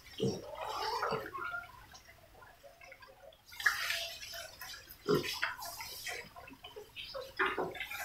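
Several piglets grunting and snuffling as they root together, with irregular short grunts and a louder noisy stretch a little before the middle.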